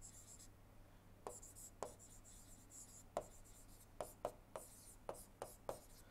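Stylus writing on a tablet: a series of faint, short taps, one with each pen stroke of handwriting, with a light scratchy hiss between them.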